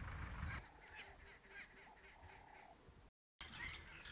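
A faint bird call: a quick run of short, evenly spaced notes, about six a second, after a low rumble at the start. The sound cuts out briefly about three seconds in.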